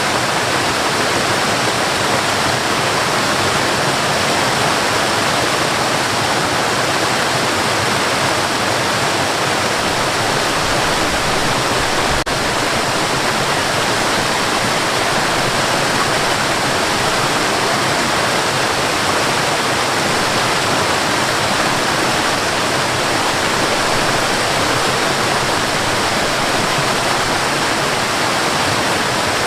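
Waterfall on a forest river, water rushing and splashing in a steady, unbroken roar.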